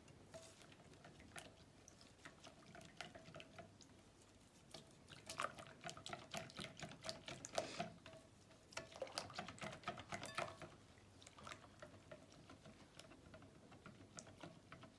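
Balloon whisk beating a thin yogurt-and-water mixture in a glass bowl: faint liquid sloshing with light clicks of the wires against the glass, busiest in the middle stretch.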